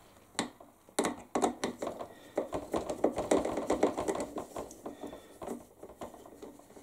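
Screwdriver turning out the self-tapping screw from the plastic rudder arm of a Heng Long Atlantic Yacht RC boat: a fast run of small clicks and creaks, a few separate ticks at first, then dense and steady for several seconds before thinning out.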